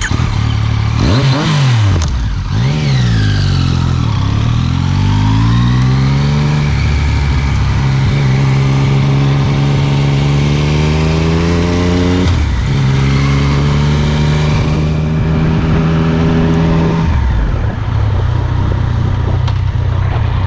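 Yamaha FZ-09's inline-three engine through an Akrapovic carbon-fibre exhaust. It is revved up and down twice, then the note climbs slowly as the bike pulls away and accelerates gently. The pitch drops about twelve seconds in, runs steady, and drops again to a lower steady note near the end.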